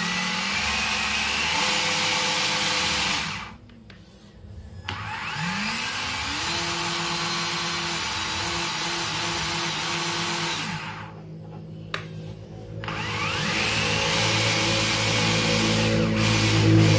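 Traxxas TRX-4's Titan 550 brushed motor driving the drivetrain with the wheels off the ground: a whine that rises in pitch as it spins up, then runs steadily. It cuts out twice, about three and a half seconds in and again around eleven seconds, and spins up again each time.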